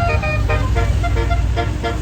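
Tour bus 'telolet basuri' musical horn playing a quick melody of short pitched notes, over the bus's engine running.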